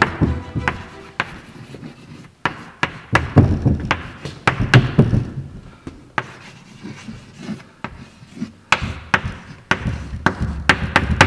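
Chalk writing on a blackboard: irregular sharp taps as the chalk strikes the board, with short scratches between them.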